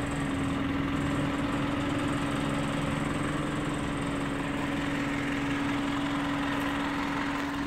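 An engine idling steadily, a constant even hum with one held tone.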